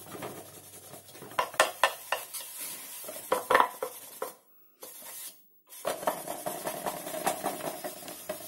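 A stiff paintbrush scrubbing furniture wax onto a small painted wooden drawer in quick scratchy strokes, with light knocks as the drawer is handled. It breaks off twice briefly about four to five seconds in.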